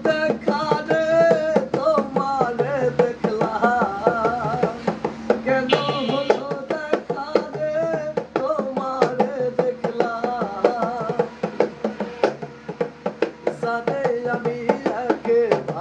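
Baul folk music: a wavering melody line over quick, steady hand-drum strokes.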